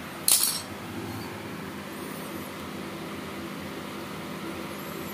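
A short, sharp clatter about a third of a second in, as a tool or test lead is handled on the workbench, over a steady low hum.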